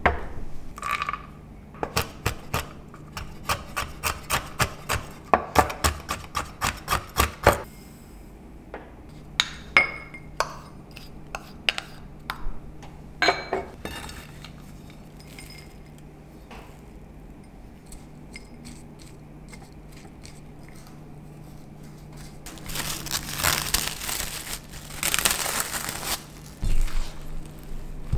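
Kitchen prep of a nut filling: a quick run of sharp knocks, about three a second, then scattered taps and clinks of glass bowls and a knife on a wooden cutting board, and a few seconds of scraping near the end.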